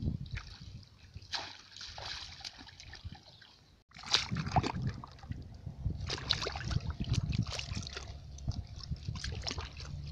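Shallow water splashing and sloshing as a woven bamboo fish trap is worked down through grass in floodwater, in irregular small splashes with a brief break about four seconds in.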